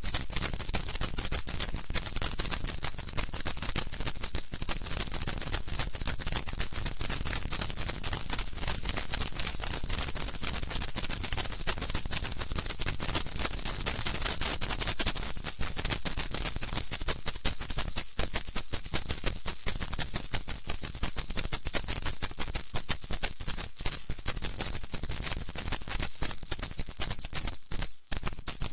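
A pair of maracas shaken without a break, a fast, steady, bright rattle of the beads or seeds inside, with a brief dip near the end.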